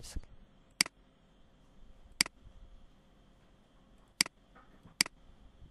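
Computer mouse button clicks: about five sharp single clicks at uneven intervals, over a faint steady electrical whine.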